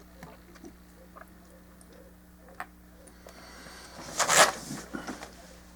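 Plastic model kit parts being handled on a work surface: a few light clicks, then a louder short rustle and clatter of pieces about four seconds in, over a steady low hum.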